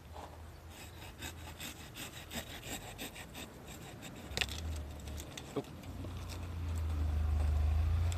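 Hand saw cutting through the thick succulent stem of a Euphorbia acrurensis with quick back-and-forth rasping strokes, with a sharp crack about four and a half seconds in. A low rumble swells over the last couple of seconds.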